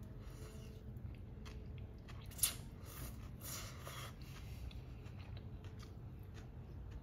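A person chewing a mouthful of cold instant noodles with cucumber: faint chewing and crunching, with the sharpest crunch about two and a half seconds in.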